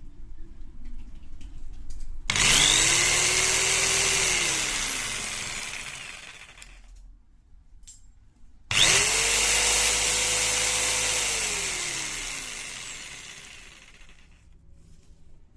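Hitachi CJ65VC electronic jigsaw switched on twice for a running check. Each time the motor spins up with a rising whine, runs steadily for a couple of seconds, then winds down with a falling pitch after release. The second run is at a higher speed.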